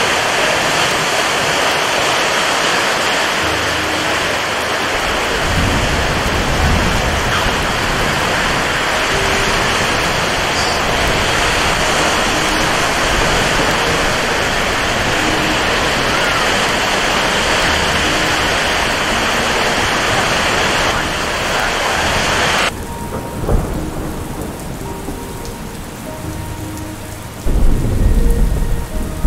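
Heavy rain falling steadily, a dense hiss, which changes abruptly about 23 seconds in to softer, duller rainfall. Deep low rumbles swell under the rain a few times, loudest near the end.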